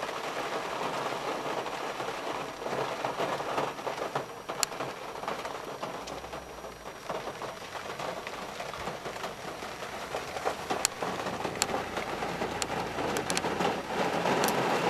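Heavy rain falling on a car's roof and windscreen, heard from inside the cabin: a steady hiss with scattered sharper drop hits.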